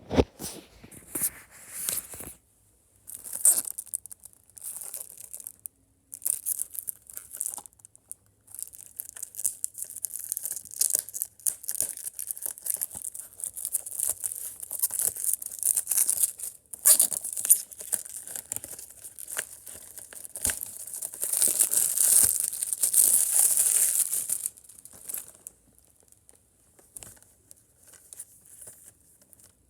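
Plastic shrink wrap being torn and crinkled off a Blu-ray case, in irregular bursts of rustling with short gaps, loudest for a few seconds about three-quarters of the way through.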